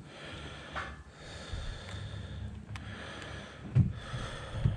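Breathing and handling noise close to the microphone, with two dull low thumps, one about four seconds in and one near the end.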